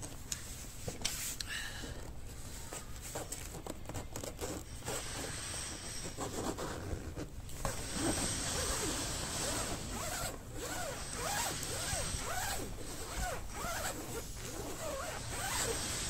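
Zipper on a golf bag's long pocket being slid back and forth along its track, in a series of quick, irregular zipping strokes.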